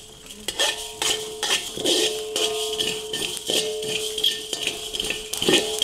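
A metal utensil clanking and scraping against a metal cooking pan while food is stirred, with irregular sharp knocks about every half second and a steady ringing tone underneath.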